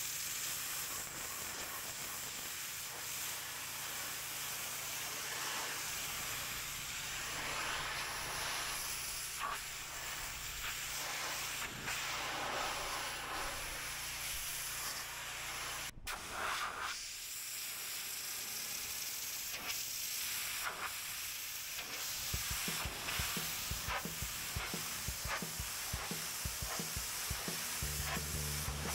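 Pressure washer water jet hissing against paving, steady, with a brief break about halfway through.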